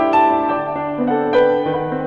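Slow, gentle instrumental background music played on keyboard, with held notes and chords that change every half second or so.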